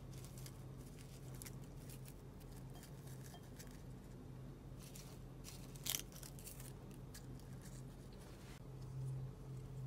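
Crisp roasted seaweed sheets crackling faintly as they are handled, with one louder crackle about six seconds in. A steady low hum runs underneath.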